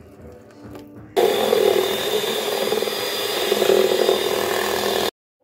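Electric hand mixer switched on about a second in, its beaters whirring steadily through egg batter in a stainless steel bowl, with a motor whine; the sound cuts off suddenly near the end.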